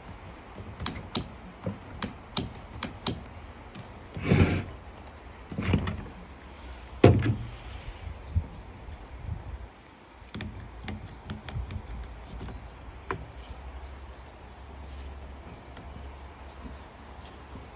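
Handling noise from parts and tools being worked on a bench: a quick run of small sharp clicks, then three heavier knocks a second or so apart, then fainter scattered clicks.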